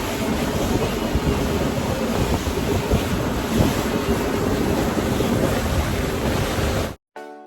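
Wind buffeting the microphone and water rushing past a moving motorboat, a steady loud rush with a faint hum underneath; it cuts off abruptly about seven seconds in.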